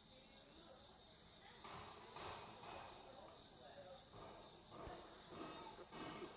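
Insects trilling continuously on one steady, high-pitched note. Fainter, patchy rustling noises lie underneath from about a second and a half in.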